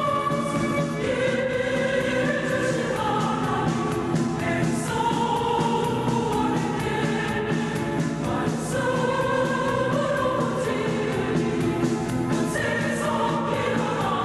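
Mixed church choir singing a Korean gospel hymn in long, held phrases, the chords moving every second or two without a break.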